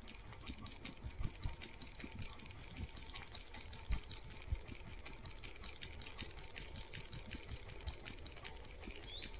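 Dog walking on a gravel forest road with the camera on its head: irregular footfalls and soft thumps with a light rattle and jingle, the loudest bumps about a second and four seconds in. A bird gives a short rising chirp near the end.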